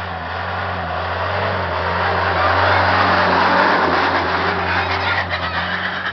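Engine of a 4x4 SUV pulling steadily up a steep dirt track, growing louder as it drives past close by about three to four seconds in, then easing off as it climbs away.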